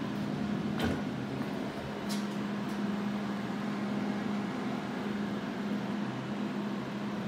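Steady machine hum with a low tone from a powered-on Haas Mini Mill CNC vertical mill, with two short clicks about one and two seconds in.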